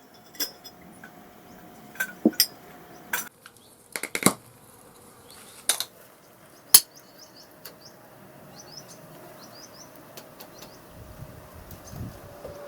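Scattered sharp clinks and knocks of small steel parts being handled and set down, the loudest about seven seconds in. Short high rising chirps of a small bird come repeatedly in the second half.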